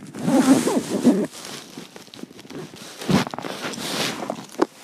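Rustling and knocking from handling close to a covered microphone, with a muffled voice-like sound in the first second and a thump about three seconds in.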